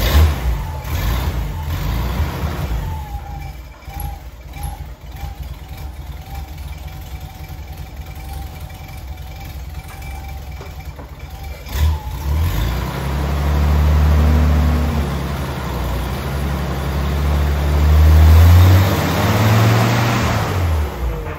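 Dodge M37 truck's flathead inline-six engine running at a steady idle, then revved twice with its pitch rising and falling: once starting about twelve seconds in and again near the end.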